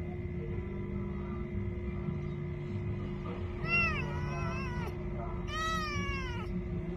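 A kitten meowing twice, two high, arching cries about a second apart, the second one longer.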